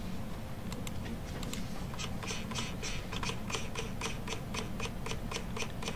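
A rapid series of light clicks and taps, several a second, from working a computer's mouse or stylus while switching documents and scrolling. Underneath is a steady low hum.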